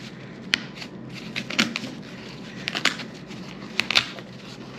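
Stapled canvas being pulled off a wooden stretcher frame by hand. Several sharp clicks and scrapes come as the fabric is yanked free of the staples.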